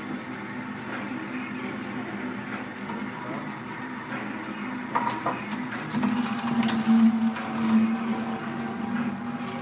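Vertical slow juicer running with a steady motor hum. From about five seconds in, sharp cracking and crunching comes as carrot pieces fed down the chute are crushed.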